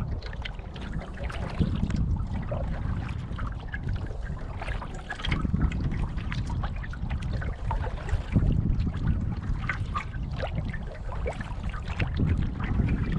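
Lake water lapping and trickling against the side of a moving canoe, with many small splashes, over a low rumble of wind on the microphone that swells every few seconds.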